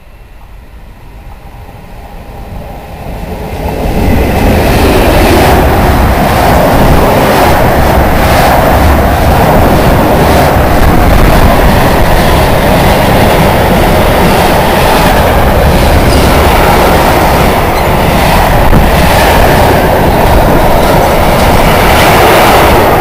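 Long mixed freight train approaching and passing close by at speed. The noise builds over the first four seconds, then stays as a steady loud rumble and rattle of wagons, with wheels clattering over the rails.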